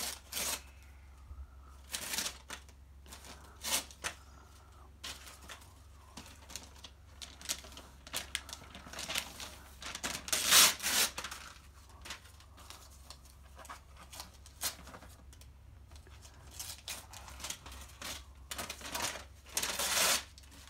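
Christmas wrapping paper being torn off a gift box by hand in a series of short rips, the loudest about halfway through.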